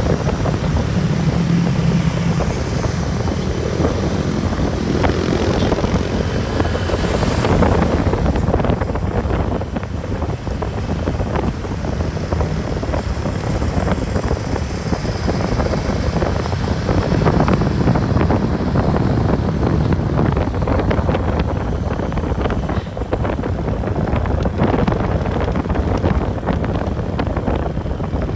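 A bus engine running and road noise as the bus drives along, a steady low drone.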